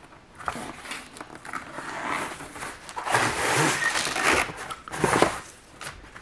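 Cardboard packaging rustling and scraping as a paint-by-numbers canvas is unpacked from its box and laid down, loudest in a long stretch of rustling in the middle and again shortly before the end.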